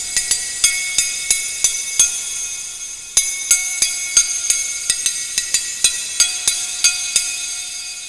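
Percussive music of bright, ringing struck notes at about three strikes a second. The ringing dies down and the pattern starts afresh about three seconds in.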